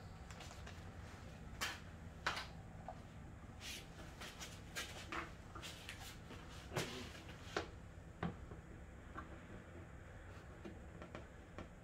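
Scattered light knocks and clicks, about a dozen spread unevenly, of a carbon fiber side skirt extension and sheet metal screws being handled and fitted against the car, over a faint steady low hum.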